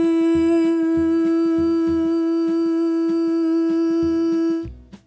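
A woman singing one long 'moo' on a single steady note, held for about four and a half seconds and then cut off. A soft, regular low beat runs underneath.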